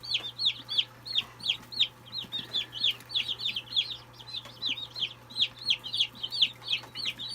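A flock of chickens peeping: a continuous run of short, high-pitched cheeps, several a second and overlapping, while they fight over live grasshoppers.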